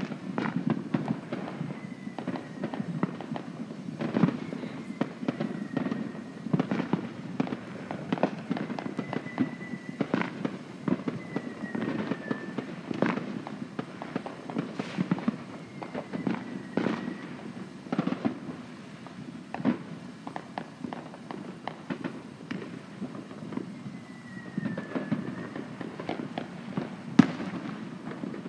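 Many fireworks going off: a constant scatter of bangs and pops, several a second, over a low rumble, with a faint high whistle now and then.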